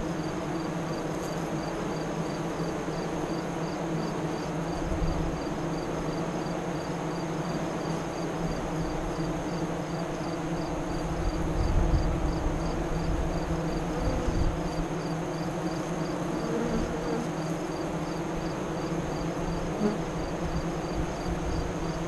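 Honey bees buzzing at a busy hive entrance in a steady, low hum, with occasional low rumbles.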